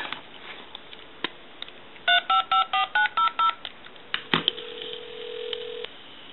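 Handheld tone dialer sending seven DTMF touch-tones in quick succession, picked up by the telephone's handset transmitter and heard over the line as a test of its sensitivity. A click follows, then a steady low line tone about a second and a half long.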